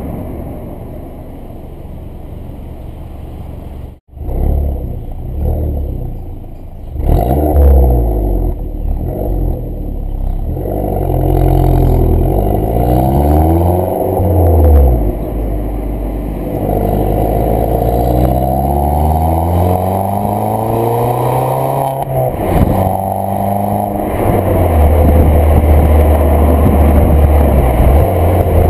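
Exhaust of an Audi A3 8P's 1.4 TFSI turbocharged four-cylinder, its middle silencer replaced by a dummy pipe and the original rear silencer kept, running loud and revving, its pitch climbing and falling several times. There is a brief dropout about four seconds in, and the engine holds a steady low note near the end.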